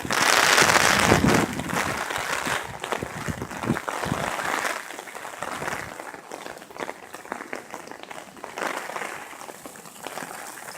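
Hurricane wind and heavy rain: a loud rushing gust for about the first second and a half, then a dense patter of rain that slowly eases.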